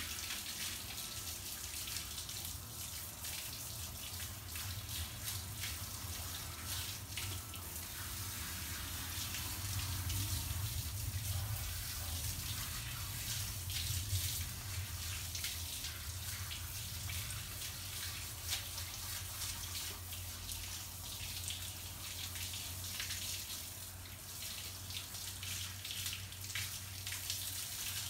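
Water running from a garden hose and splashing onto a wet dog and the wet paving, a steady rushing with small splashes, over a low steady hum.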